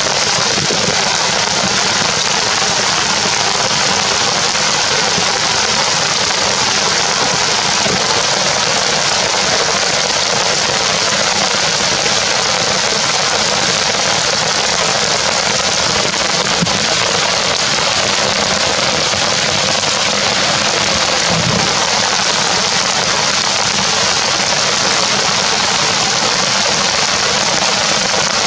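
Heavy rain falling steadily: a loud, even hiss of drops on wet ground, rocks and leaves.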